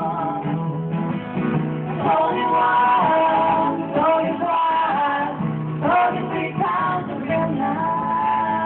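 Live acoustic music: women's voices singing together in harmony over two strummed acoustic guitars.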